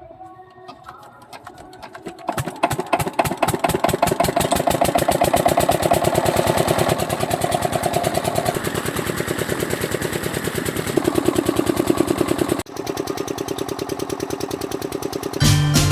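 A small electric motor starts about two seconds in and runs with a rapid, even buzzing pulse. It cuts out briefly and starts again near the end, and music begins at the very end.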